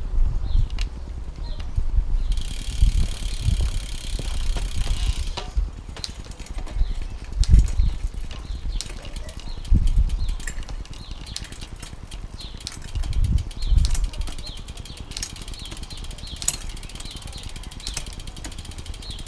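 Shimano 105 road-bike drivetrain cranked by hand on a workstand, the chain running over the chainrings and an 11-40 cassette while the gears are shifted through. There is a hiss for a few seconds early on, and a fast, even ticking through the second half.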